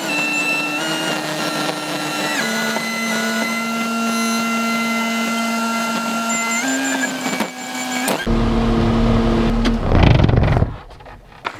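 Cat skid steer running, heard from inside its cab: a steady engine drone with a whine whose pitch steps up and down several times as the machine works. Near the end it turns deeper and louder, then drops away suddenly.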